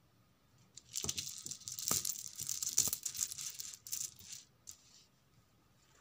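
Small round mirror pieces tipped out and spread by hand, rattling and clinking against each other for about three and a half seconds, starting about a second in, then a few single clicks.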